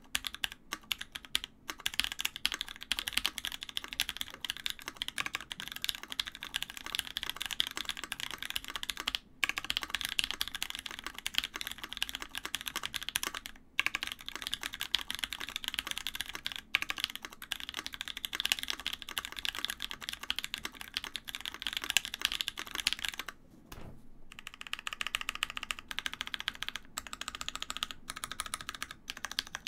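Typing on a Scarlet TKL custom mechanical keyboard with oiled Pewter switches in a top-mounted aluminium full plate: a continuous run of keystroke clacks. The keystrokes are sparser for the first couple of seconds and pick up speed about three seconds in. Near the end, after a short pause, the typing gives way to presses of the modifier keys.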